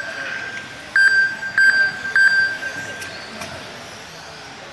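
Race timing system beeping three times about half a second apart, starting about a second in, as RC cars cross the lap-counting line, over the faint steady hiss of electric RC touring cars running on a carpet track.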